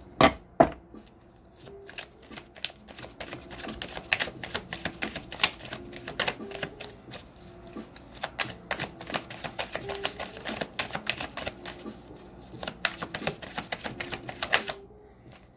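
Tarot deck being shuffled by hand: a rapid, irregular run of clicks and slaps as the cards are pushed from hand to hand. Two sharp knocks come just after the start.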